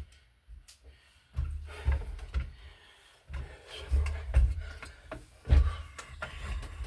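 Hand work at an electrical outlet box: irregular low thumps, scrapes and clicks in several bursts as a screwdriver and the device are handled against the box.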